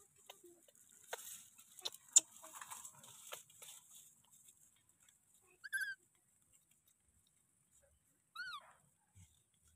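Rustling with a few sharp clicks, the loudest about two seconds in, then a baby monkey gives two short high squeaks that rise and fall, one about six seconds in and one near the end.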